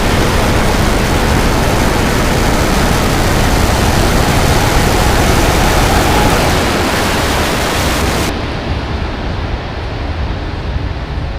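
Starship's Raptor rocket engines firing for the landing burn: a loud, steady roar of noise. About eight seconds in the hiss cuts off sharply, leaving a lower rumble.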